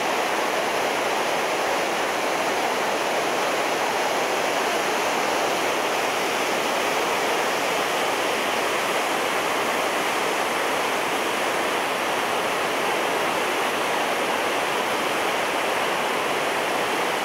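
High river water pouring over a low dam and churning through rocky rapids below it: a steady, loud rush of white water. The river is running high after 2 to 3 inches of rain.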